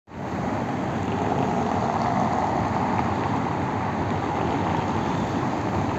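Steady city street noise with traffic: a constant, even rush without distinct events.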